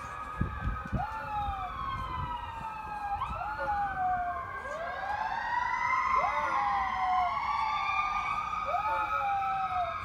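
Fire truck sirens wailing, several overlapping tones rising and falling slowly. A small dog howls along in short howls that rise quickly and then fall, one every couple of seconds.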